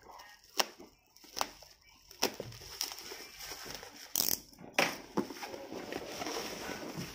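Packaging being handled and opened by hand: a string of sharp taps and clicks with crinkling of plastic or paper, and a louder crinkle a little after four seconds in.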